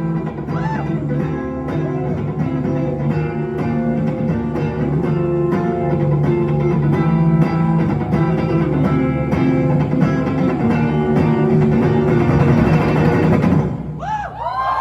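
Guitar-led rock band playing to the end of a song, the music stopping suddenly near the end; then an audience starts cheering and whooping.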